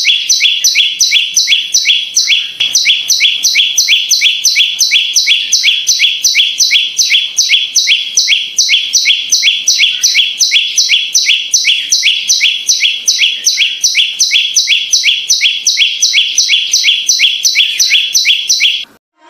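Perenjak (prinia) singing: a fast, even string of sharp high chirps, about three to four a second, kept up without a break and cut off suddenly near the end.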